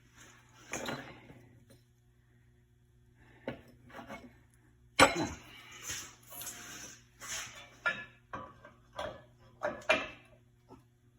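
Scattered metallic clicks and clinks of new brake pad clips and brake pads being handled and fitted into the rear caliper bracket. A quiet spell near the start, then the loudest knock about five seconds in and a run of lighter clicks.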